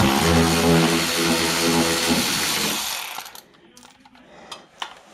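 Handheld power tool running for about three seconds, with a steady whirring hum, as fasteners are driven out of the car's under tray, then stopping.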